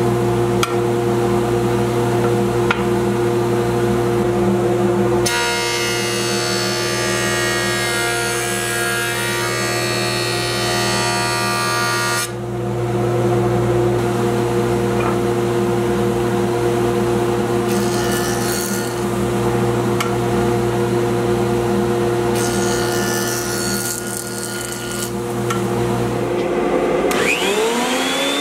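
Delta jointer running with a steady motor hum, its cutterhead planing a board: the cutting noise swells for several seconds from about five seconds in and returns briefly twice later. Near the end the jointer cuts out and a Ridgid benchtop thickness planer's motor starts up, its whine rising in pitch.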